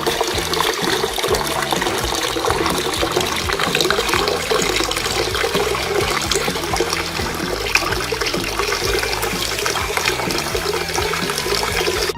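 Water steadily splashing and trickling down a small handmade cement waterfall fountain.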